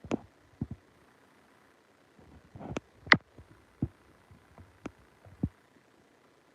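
A string of short knocks and clicks at irregular intervals, about eight in all. The loudest comes a little over three seconds in.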